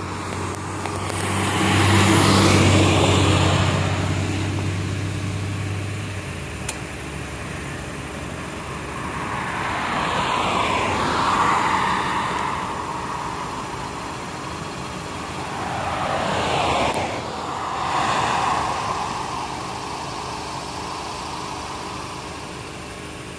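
Road traffic: three cars pass one after another, their tyre and engine noise swelling and fading. A low steady engine hum runs underneath for the first several seconds, then cuts off.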